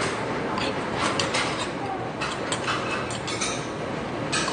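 Close-up eating noises: chewing and mouth clicks, a string of short irregular ticks, as a man eats soup. A steady hiss runs underneath.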